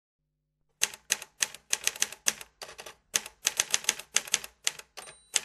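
Typewriter keys clacking in quick, uneven strokes, a typing sound effect for text appearing letter by letter; it starts about a second in after silence.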